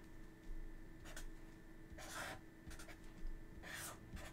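Sharpie marker drawing curved lines on paper: a few faint, short scratchy strokes of the felt tip.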